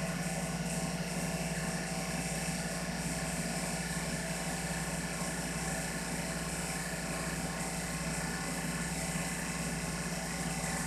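Blueline Orion 100 oil-sealed rotary vane vacuum pump running steadily, an even, unchanging drone, while it pulls vacuum on a flask of cooking oil for a vapor pressure test.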